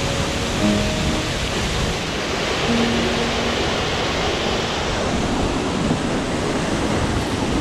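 Steady rush of a waterfall pouring into a river, with a few held notes of background music over it in the first three seconds.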